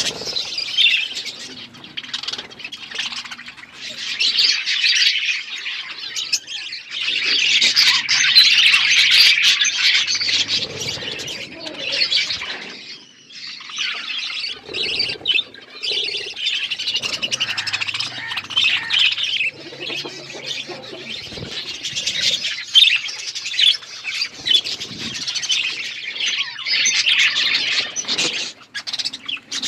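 A flock of budgerigars chattering and chirping continuously, with overlapping squawks and warbles, busiest in the middle with a brief lull.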